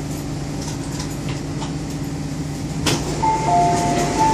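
MTR South Island Line S-train standing at the platform with a steady low hum; about three seconds in, a sharp clunk as the passenger doors release and slide open, followed by a repeating two-tone door chime.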